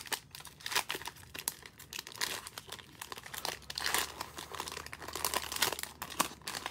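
Plastic wrapper of a football trading card pack crinkling and tearing as it is pulled open by hand, a steady run of irregular crackles.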